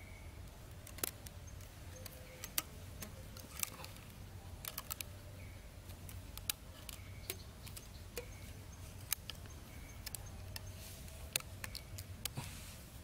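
Irregular light clicks and taps of bamboo sticks being handled and fitted together by hand, with faint short high chirps now and then in the background.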